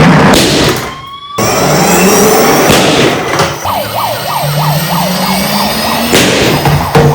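Toy emergency-vehicle sirens sounding over loud noisy clatter. In the middle a fast yelping siren repeats about four falling sweeps a second.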